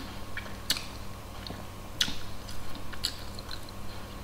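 A person chewing a mouthful of moist banana bread: a few soft, scattered mouth clicks and smacks over a low steady hum.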